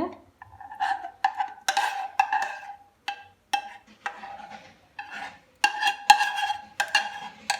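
A spoon scooping cream out of a metal pot, knocking and scraping against it at irregular intervals. Each knock leaves a short ringing tone.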